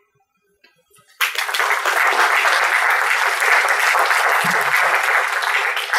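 Audience applauding: after about a second of near silence the clapping starts all at once and keeps up steadily and densely.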